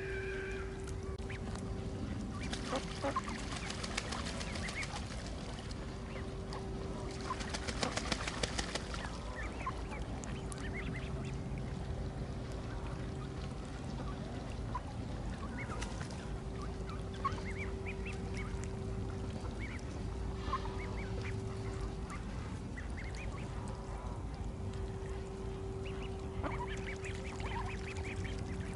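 Ducks and other waterfowl calling on a lake, short quacks and honks scattered throughout. Two louder bursts of rapid, rattling pulses come about three and eight seconds in.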